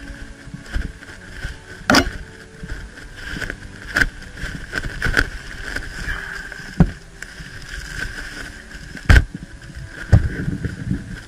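Footsteps and gear handling of a player moving through woodland, with about six sharp knocks or cracks at irregular intervals, the loudest about two seconds in and near the end.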